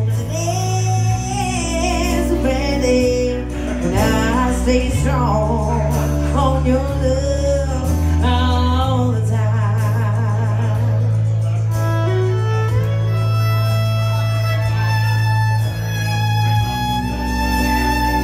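Live band music: a singer with fiddle over low sustained bass notes. About ten seconds in, the gliding vocal-like line gives way to the fiddle playing long held notes.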